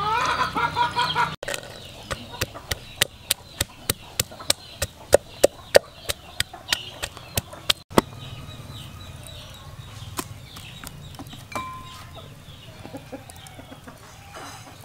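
A chicken clucking, its call rising in pitch, then a run of sharp knocks about three a second for several seconds that grow louder and stop abruptly, followed by a quieter stretch with faint chirps.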